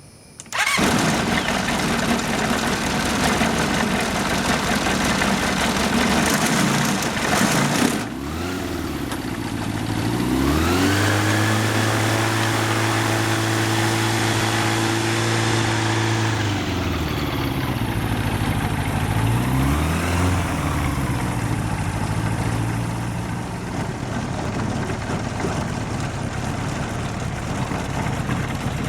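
Yamaha Genesis four-cylinder aircraft conversion engine, driving a propeller through a chain reduction drive, starts suddenly and runs loud. About ten seconds in it revs up and holds for several seconds before dropping back, blips up once more briefly, then settles to a steady run.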